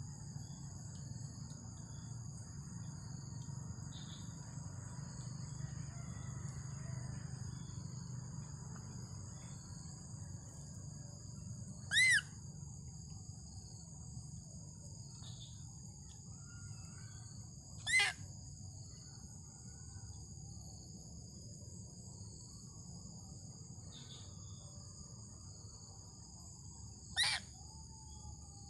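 Steady high-pitched insect chorus over a low background rumble, broken three times by a short, loud, shrill call, about twelve, eighteen and twenty-seven seconds in.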